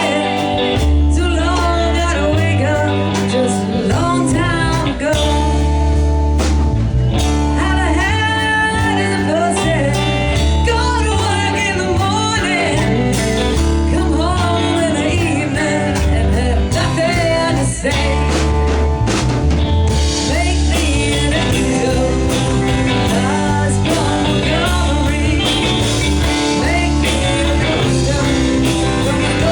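Live band playing a blues-rock number, with drums, bass, electric guitar and a singer.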